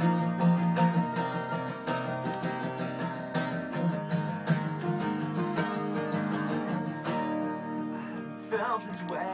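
Two acoustic guitars strumming the opening of a live song, with a voice coming in near the end.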